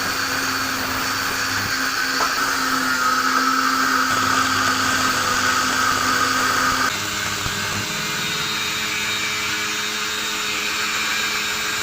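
A power tool running steadily with a whining hum. Its sound changes abruptly about seven seconds in and carries on a little quieter.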